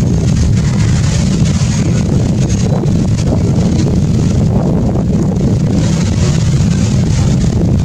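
Wind buffeting the microphone: a steady low rumble with a hiss above it.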